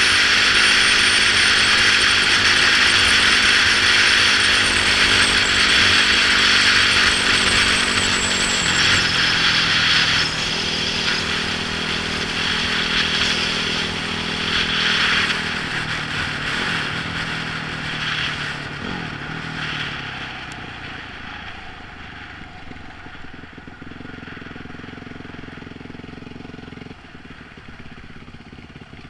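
Wind rush over a helmet-mounted camera and a Yamaha YZ450F four-stroke single-cylinder engine running at road speed. About ten seconds in the rider backs off, and the wind and engine fade as the bike slows, the engine settling to a lower, quieter note near the end.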